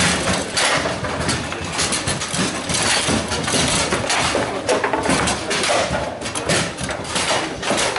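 Table football being played: the ball clacking against the wooden figures and the table walls and the rods knocking, in quick irregular strikes. Under it is a steady clatter from other tables in play in the hall.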